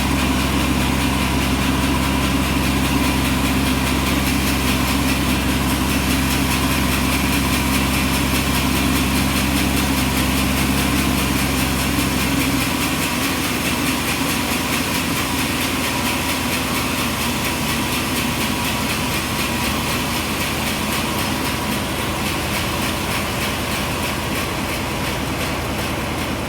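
Sawmill engine running steadily. About halfway through, its low hum drops away while a steady, higher machine noise carries on.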